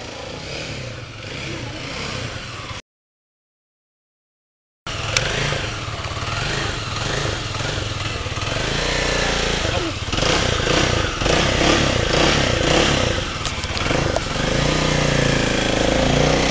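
A motorcycle running on the road. A dead gap of about two seconds near three seconds in, then the engine and road noise come back louder.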